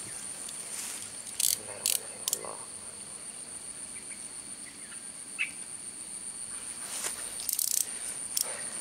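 Insects droning steadily at a high pitch in grassland. A few short, sharp rustles or clicks cut through about one and a half to two and a half seconds in and again near the end, with a single brief chirp midway.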